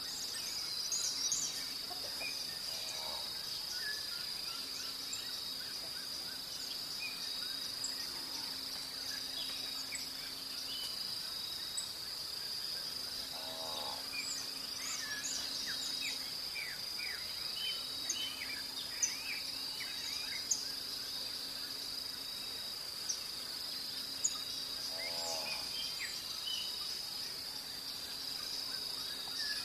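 Dawn chorus: many small birds chirping and twittering over a steady, high-pitched insect drone. A lower call repeats three times, about every ten seconds.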